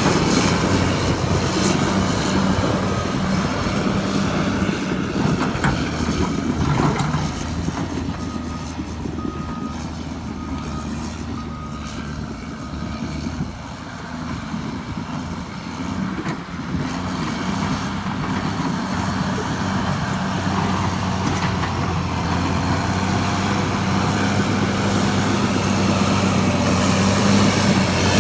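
Caterpillar D6R2 bulldozer's diesel engine running steadily, easing off through the middle and building back up toward the end. A reversing alarm beeps several times during the quieter stretch.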